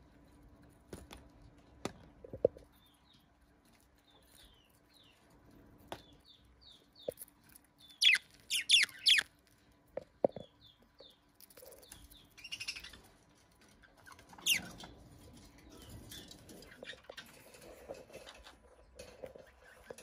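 Budgerigars chirping in short, high notes while pecking at chopped greens in a clay bowl, with scattered small clicks. A burst of louder, sharper calls comes about eight seconds in, and another about fifteen seconds in.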